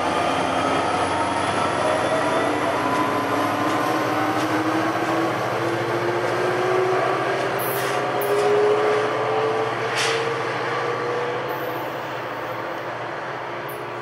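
NJ Transit PL42AC diesel-electric locomotive pulling its passenger train away, the engine and drive whine rising steadily in pitch as it accelerates, with rail noise. It fades a little near the end as the train draws off, with a few sharp clicks in between.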